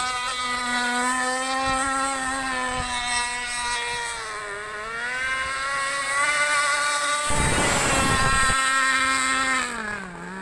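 Radio-controlled speedboat running flat out, its motor a high, steady buzz that dips in pitch about four seconds in and again near the end. A loud rush of noise breaks in for about a second, some seven seconds in.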